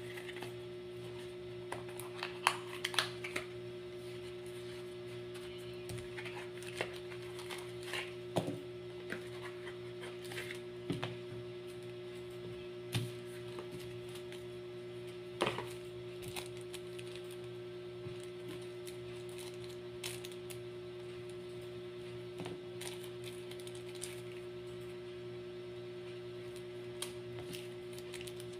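Scattered light clicks, taps and crinkles of small cardboard boxes and clear plastic parts bags being handled and opened, over a steady electrical hum.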